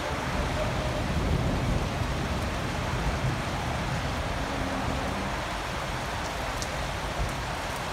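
Steady rain falling in wind: an even hiss over a low, fluttering rumble of wind.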